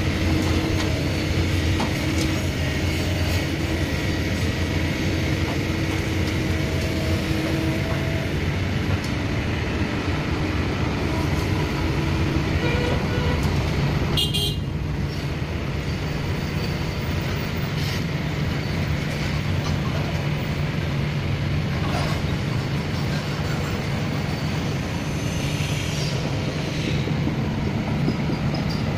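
Kobelco SK210 hydraulic excavator running under load as it digs and swings wet soil, a steady diesel engine hum with a steady whining tone over it for the first several seconds.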